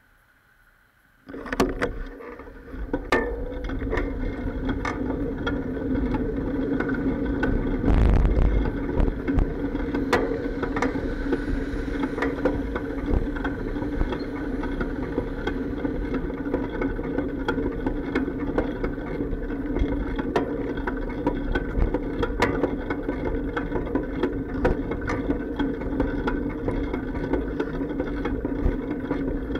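Bicycle riding noise picked up through the camera's sealed waterproof case on the bike: near silence while stopped, then from about a second in a steady rumble with frequent clacks and bumps from the bike as it rides off.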